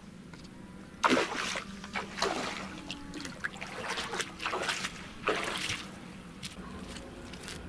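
Water splashing and trickling as a keepnet is set down in shallow river water, in a run of splashes starting about a second in, the first the loudest, dying away after about six seconds.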